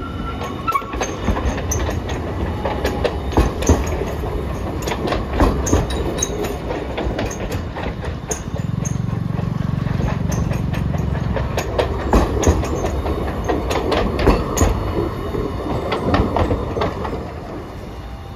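Hiroden 1000-series Green Mover LEX low-floor trams running over street track on a curve: a steady rumble with repeated wheel clicks and knocks over rail joints, louder as a tram comes near toward the end.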